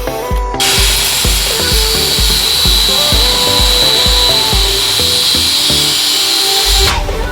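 Background music with a steady beat, overlaid by a loud steady hiss that starts abruptly about half a second in and cuts off near the end.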